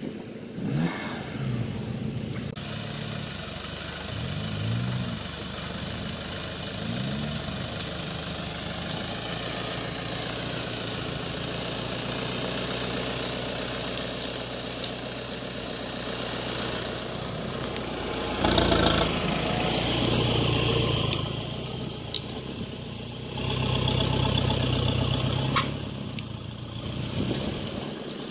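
Off-road 4x4 engines running under load, with the revs swinging up and down several times in the first seconds and two louder bursts of revving in the second half.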